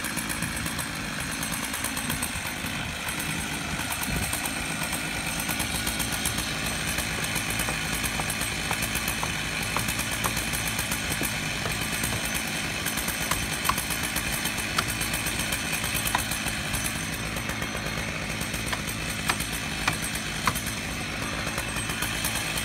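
Two Stihl 088 two-stroke chainsaws running steadily together, driving a long bar through a redwood log on a double-ended Alaskan chainsaw mill.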